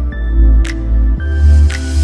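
Background music: sustained tones over a deep bass, with a sharp beat about once a second.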